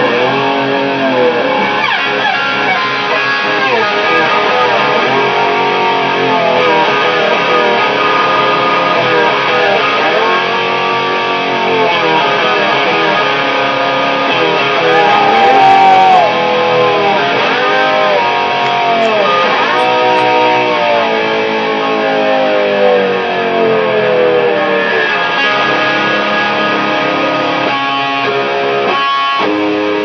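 Electric lap steel guitar played with a slide bar, amplified: sustained notes glide up and down and bend in arcs, with a few sharper picked strokes near the end.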